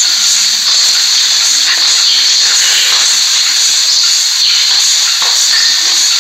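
GEMC 48-inch ceiling fan running, heard as a loud, steady hiss of moving air.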